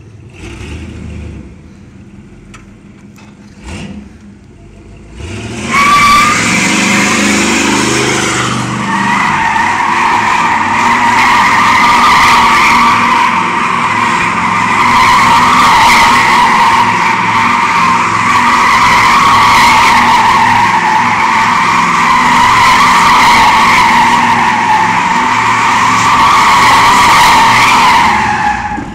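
1986 Buick Regal's rear tires screeching in one long, continuous squeal as the car spins donuts, with the engine revving up as the squeal begins about five seconds in; the squeal stops abruptly near the end.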